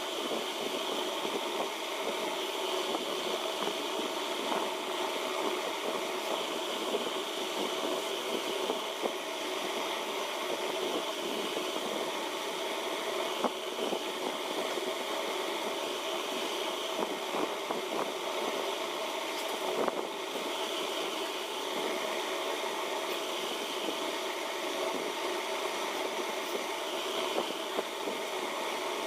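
A steady mechanical hum with several held tones and no deep bass, unchanging throughout, with a few faint clicks here and there.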